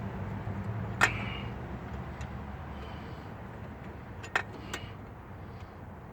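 A few sharp metal clicks and clinks from nuts and hand tools being worked onto an engine's manifold studs. The loudest comes about a second in and two more follow close together past the middle, over a low steady hum.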